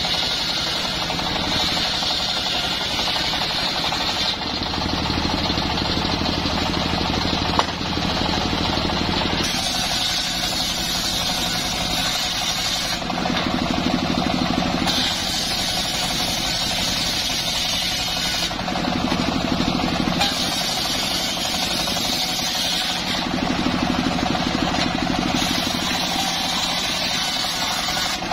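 Large sawmill circular saw running and ripping a log into planks. A high whine comes and goes every few seconds over a steady low drone as the wood is pushed through the blade, pass after pass.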